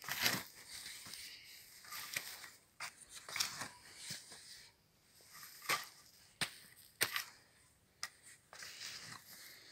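Steel spade being pushed into garden soil and turning it over: a series of crunching, scraping strokes at irregular intervals, with a few sharp clicks as the blade cuts in.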